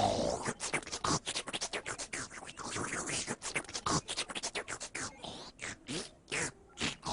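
Hip-hop style scratching: rapid, stuttering chopped strokes with swooping rises and falls in pitch, several per second.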